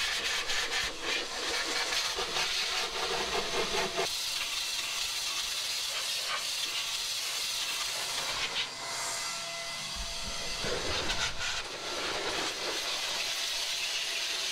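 DataVac electric air duster blowing a steady rushing hiss of air into an open desktop computer case to blow dust off the motherboard, CPU cooler and fans. The rush of air dips briefly a couple of times in the second half.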